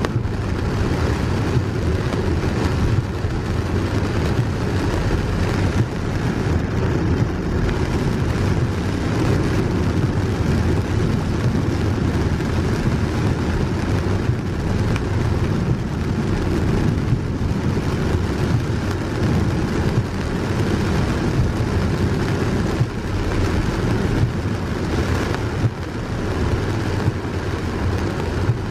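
Heavy rain on a moving car, with tyres running through water on a flooded road, heard from inside the car: a loud, steady noise.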